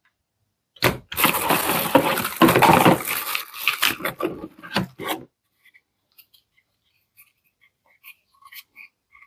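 Plastic packaging crinkling and tearing for about four seconds as a vacuum accessory is unwrapped, followed by a few faint light taps and clicks.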